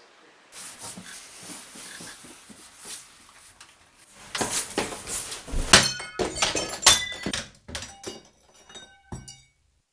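A dense, irregular run of thuds, knocks and clattering crashes, loudest about six to seven seconds in, that breaks off abruptly near the end.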